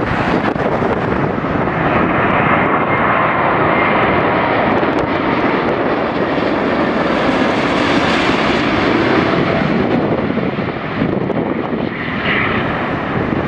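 An Emirates Airbus A380-800's four jet engines on final approach, passing low overhead: a loud, steady rushing jet noise that builds to its loudest about eight seconds in and then eases off, with a faint high engine whine early in the pass.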